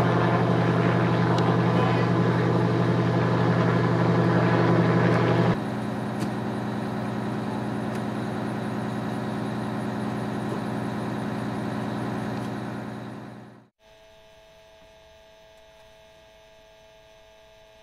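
News helicopter flying overhead, a loud steady rotor and engine drone that cuts off abruptly about five seconds in. A quieter steady engine hum follows and fades out near the end, leaving a faint steady electronic tone.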